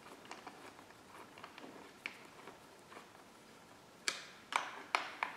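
Light clicks and ticks of a T-handle Allen wrench working a handguard mounting bolt, with four sharper clacks in quick succession near the end.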